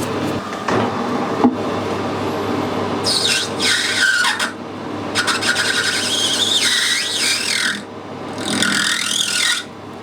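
Metal lathe running with a cutting tool fed into spinning brass bar stock three times, a rasping, wavering squeal of metal cutting each time over the steady hum of the machine.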